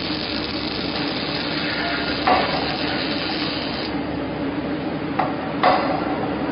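Welding robot's arc sizzling over a steady machine hum, with a few metallic clanks. The sizzle drops away about four seconds in.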